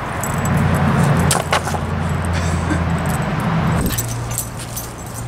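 Low steady hum of a nearby vehicle engine, changing note about four seconds in, with light metallic jingling a couple of times over it.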